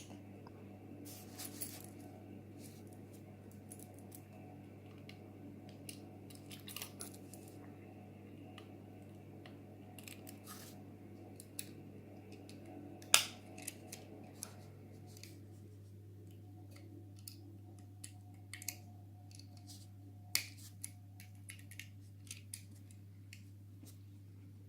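Faint, scattered clicks and taps of small die-cast metal and plastic toy-car parts being handled and fitted together, the loudest about 13 seconds in, over a steady low hum.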